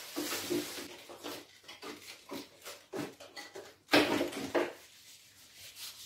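Handling noises from working on the wiring of a split air conditioner's indoor unit: scattered rustling and light clicks as the wires are wrapped to keep water off them. One sharp knock comes just before four seconds in, followed by two smaller ones.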